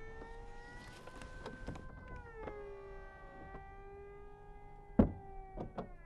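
Audi RS 5 Cabriolet's power soft top folding down: a steady electric motor whine that drops in pitch about two and a half seconds in. There is a loud clunk about five seconds in, then two lighter clicks.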